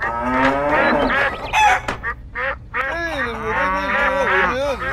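Farm animal calls: a goose honking and a cow mooing, repeated pitched calls, with a lower, drawn-out call in the second half.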